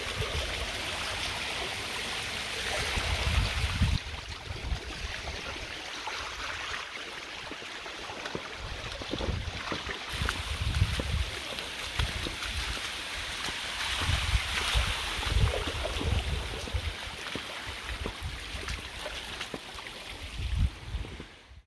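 Water rushing and splashing over and down the sloped face of a small concrete dam, with uneven gusts of wind rumbling on the microphone.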